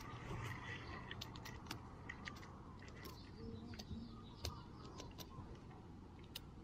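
Fingers rubbing and scraping dry dirt off a small crusted lump, giving irregular light clicks and crackles as the soil crumbles away, over a low steady rumble.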